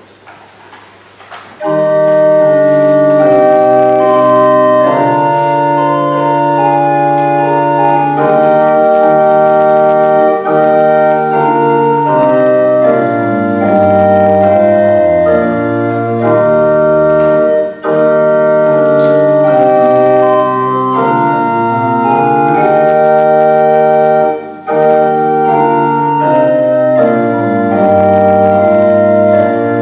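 Organ playing slow held chords over a moving bass line, starting about a second and a half in, with two short breaks between phrases: the closing voluntary that follows the blessing at the end of the service.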